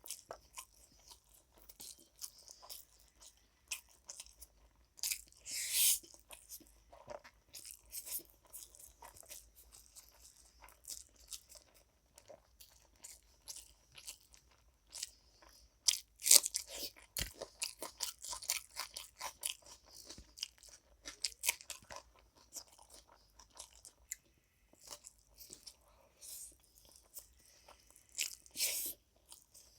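A person chewing and crunching food in irregular crackly bites, with louder crunches about five, sixteen and twenty-eight seconds in.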